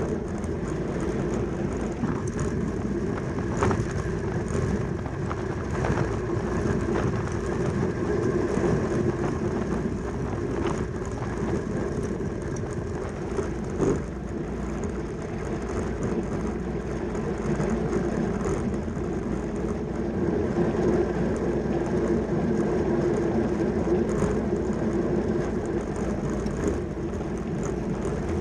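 Track bicycle ridden at race speed around a velodrome, a steady whir and rush of tyres and drivetrain with a few faint clicks.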